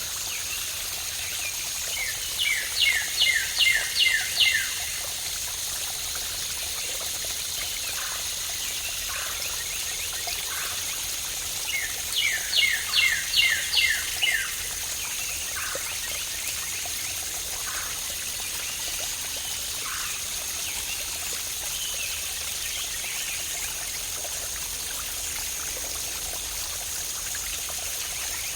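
Water of a waterfall or cascading stream rushing steadily as a constant hiss. A songbird sings two short phrases of about seven quick, evenly spaced notes, about two seconds in and again about twelve seconds in, louder than the water, with a few faint single chirps in between.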